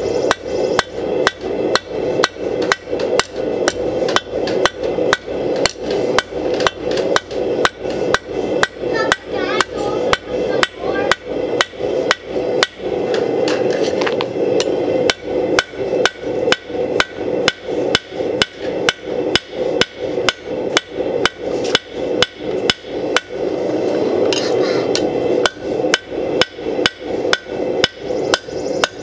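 Rounding hammer striking hot steel rebar on an anvil, drawing out its tip: sharp metal-on-metal blows in a fast, even rhythm of about three a second, pausing briefly twice. A steady drone runs underneath.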